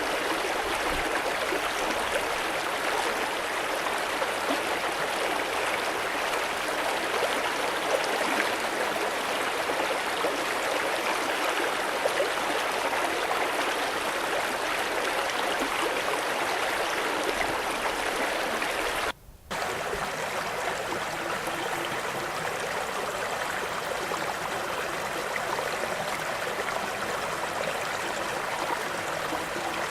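Stream water flowing in a steady, continuous babble. About two-thirds of the way in it cuts out for half a second, then resumes slightly quieter.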